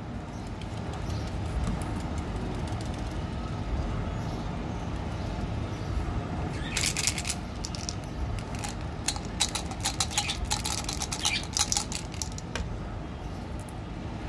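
Plastic candy packaging crackling and clicking as a small can-shaped GEMS container is handled and opened. From about halfway through come rapid sharp clicks, thickest near the end, over a steady low background rumble.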